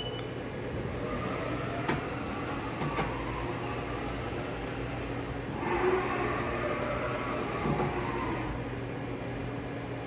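Haas VF-OE CNC vertical machining center running with a steady hum. A whine rises and falls about six seconds in, and there are a few light clicks.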